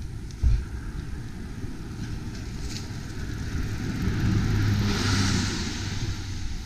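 Roadside traffic noise with low wind rumble on the microphone: a motor vehicle passes on the road, its engine hum and tyre hiss swelling to a peak about five seconds in and then fading. A low thump sounds about half a second in.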